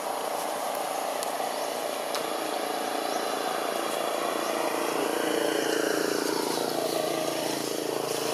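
Steady din of distant motor traffic, growing a little louder in the second half.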